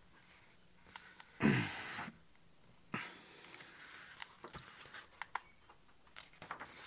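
Pages and endpapers of a thick hardcover book being turned and handled, soft paper rustles and small light taps. About a second and a half in, a brief sighing voice sound from the person handling it is the loudest thing.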